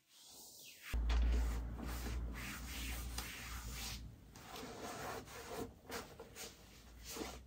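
Something rubbing against a surface in uneven passes, starting about a second in, with a low rumble underneath for the first few seconds.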